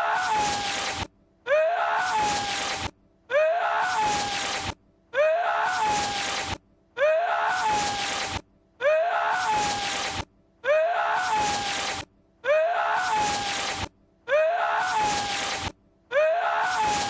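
A man's short strained vocal outburst that sounds like a sneeze, from a film clip looped over and over: the same burst repeats about every 1.8 seconds, each cut off abruptly by a brief gap.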